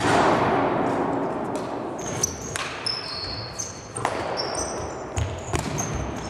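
Badminton rally on a hardwood gym floor: sharp racket hits on the shuttlecock and footsteps, with many short high sneaker squeaks. A loud rush of noise at the very start fades slowly.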